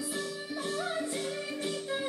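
Background music: a song with a singing voice over a steady rhythm of repeated instrumental notes.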